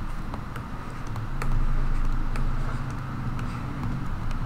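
Steady low hum of background noise on the recording, with scattered light clicks from the computer as circles are drawn on screen.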